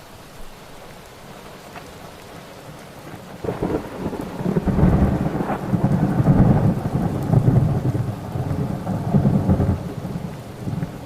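Steady rain with a long rumble of thunder that builds about three and a half seconds in, is loudest in the middle, and fades near the end.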